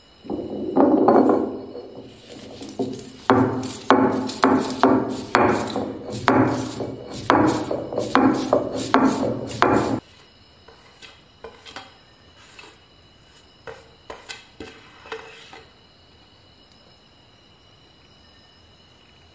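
Stone roller striking and grinding on a flat grinding-stone slab, crushing green bird's eye chillies with salt, in sharp strokes about two a second that stop abruptly about ten seconds in. A few faint light taps follow.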